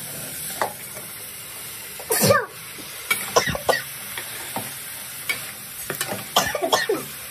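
A spatula stirring and scraping Malabar spinach seeds and potatoes in a metal pot over a gas flame, with a steady sizzle of frying: the dry-frying stage before any water is added. A few sharp scrapes stand out, the loudest about two seconds in and a cluster near the end.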